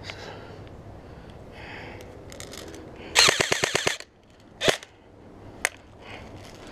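G&G Raider CM16 airsoft electric gun firing a rapid full-auto burst of about a second, then two single shots about a second apart.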